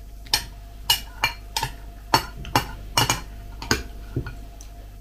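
Metal spoon clinking and scraping against a clear glass bowl of kefir while scooping from it: about ten short, uneven clinks over four seconds.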